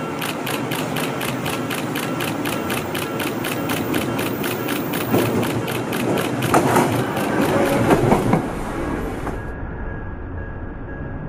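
Odakyu 50000 series VSE Romancecar rolling slowly over curved track and points, its wheels clicking evenly about three times a second. The rumble grows loudest as it passes close, then the sound cuts off near the end.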